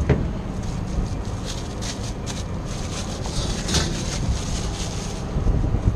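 Steady low rumble with a few light clicks and knocks scattered through it.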